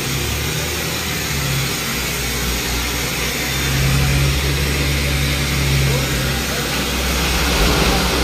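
Borewell drilling rig running: a steady engine and compressor hum under a wide hissing rush. Near the end, compressed air blows a spray of water up out of the borehole.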